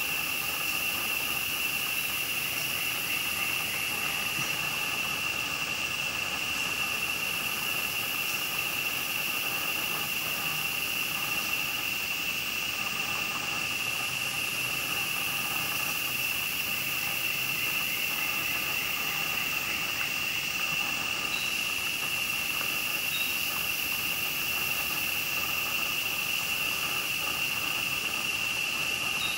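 Steady, high-pitched insect drone that holds one pitch over a constant hiss.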